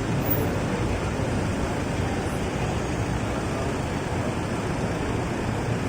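Steady roar of road traffic and street noise, heavy in the low rumble, with no single event standing out.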